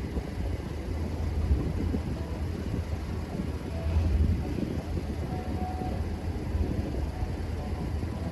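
Steady low rumble from the diesel engines of an arriving tug-barge and its assisting tugboat, mixed with wind buffeting the microphone.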